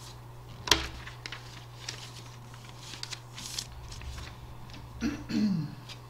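Paper handled on a desk: a sheet rustling and tapping into place, with one sharp click about a second in and a few lighter clicks and rustles after. A short falling vocal murmur comes near the end, over a steady low electrical hum.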